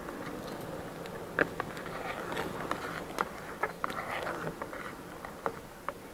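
A few sharp, light clicks and knocks of utensils being handled while coffee is made, scattered irregularly, the loudest about one and a half seconds in, over a steady background hum.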